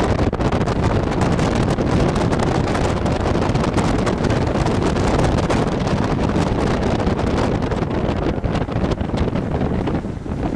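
Strong wind buffeting the microphone in a loud, steady rumble with frequent sharp gusts.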